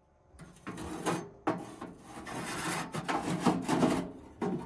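Irregular scraping and rubbing with a few knocks, like objects or wood being handled and shifted about.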